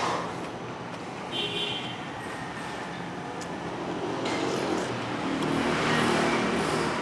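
Steady road traffic noise that grows louder about four seconds in, with a short high beep about a second and a half in.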